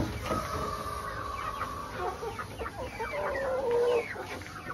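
A flock of young chickens, about three months old, clucking and calling. One long drawn-out call runs through the first two seconds, and a wavering call comes about three seconds in.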